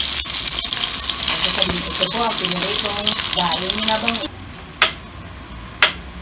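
Food sizzling as it fries in hot oil, a dense crackling hiss with a voice faintly underneath. The hiss cuts off suddenly about four seconds in, and a couple of sharp clicks follow.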